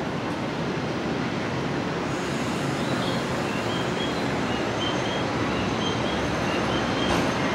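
Steady rumble of a train at a station platform. From about two seconds in, faint short high electronic tones repeat in a small three-note pattern.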